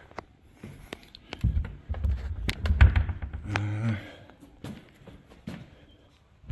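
Knocks, thuds and clicks of someone trying a way through that will not open, loudest between about one and a half and four seconds in.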